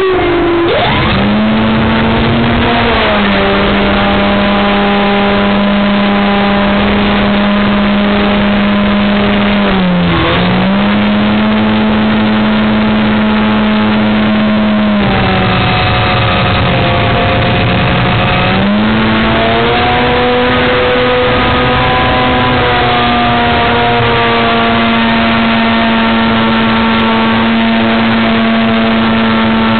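Electric motor and propeller of an Electrifly Edge 540 RC aerobatic plane, heard from a camera inside its cockpit: a loud steady buzzing drone over a constant rush of noise. The pitch dips and picks back up at the start, about ten seconds in and again about eighteen seconds in.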